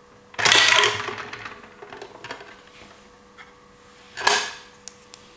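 Handling noise from a plastic toy: a loud burst about half a second in that trails off with a few light clicks, and a second sharp burst a little after four seconds, over a faint steady hum.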